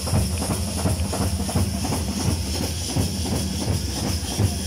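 Loud, dense festival drumming in rapid strokes, mixed with the noise of a large crowd, over a steady low hum.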